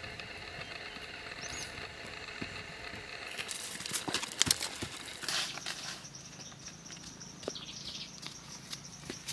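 Dry red soil being scraped and crumbling as it is dug by hand, with a cluster of gritty scrapes and clicks in the middle, the loudest about four and a half seconds in. Behind it runs a steady high insect buzz, with a brief bird chirp early on.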